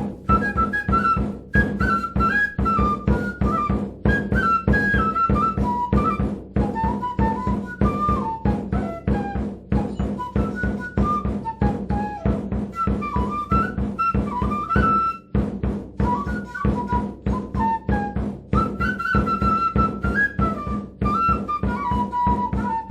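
Peruvian folk music: a high flute melody over fast, even drumbeats and a steady low drone.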